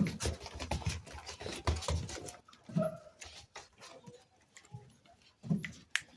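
American pit bull terrier puppies moving about, with claws pattering and scuffing in quick irregular clicks and two brief low pup vocalisations, about three and five and a half seconds in.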